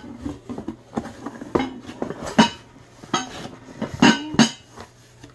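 Glass lid and heavy Rock Crock pot knocking and clinking together as they are handled, a string of sharp knocks, several of them ringing briefly.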